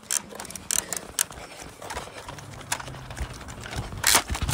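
Running footsteps, an uneven patter of short knocks, with one louder knock near the end.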